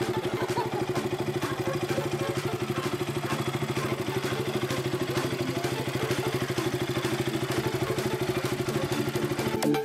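KTM RC single-cylinder motorcycle engine idling steadily with an even, rapid beat. It is running again now that the rusty, corroded starter relay contacts have been cleaned.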